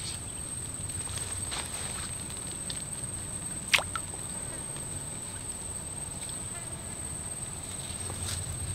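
Insects keep up one steady, high-pitched whine. About four seconds in, a single short, sharp plop is heard as a fishing float and its cricket bait drop into the still water.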